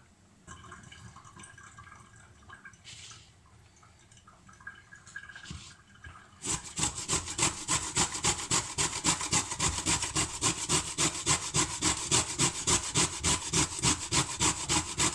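Black radish being grated by hand on a metal grater: quiet at first, then from about six seconds in a steady run of rasping strokes, about three a second.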